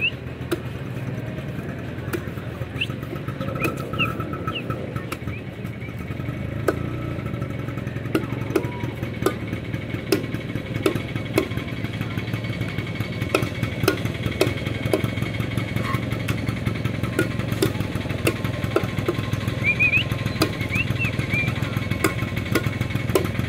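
Heavy cleaver chopping a raw eel into pieces on a wooden chopping block: sharp knocks at uneven intervals, about one a second, over a steady low motor drone.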